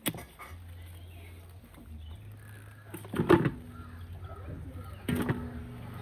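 Three sharp knocks a couple of seconds apart, with a low steady hum underneath.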